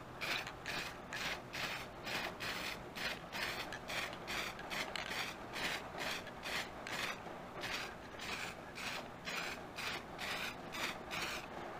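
Aerosol can of polyurethane spray in use, a string of short, even strokes of hiss and rattle, about three a second.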